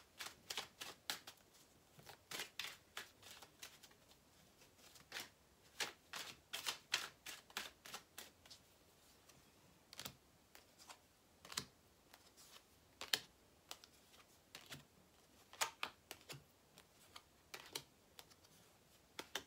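A deck of tarot cards being shuffled by hand: soft, quick card slaps and clicks in irregular runs, with short pauses between them.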